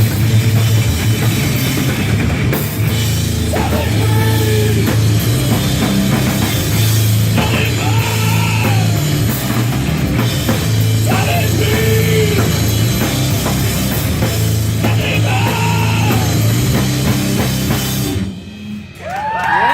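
Live heavy rock band playing loud: drum kit with distorted guitar and bass on a heavy riff, with a high note that rises and falls about every four seconds. The music drops away briefly near the end, then comes back with a rising note.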